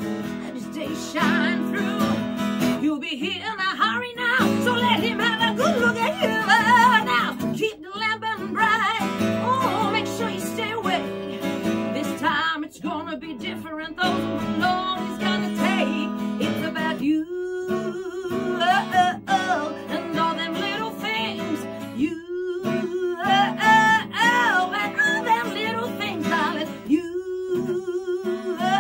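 Acoustic guitar strummed and picked with a woman singing over it: a live acoustic duo performance.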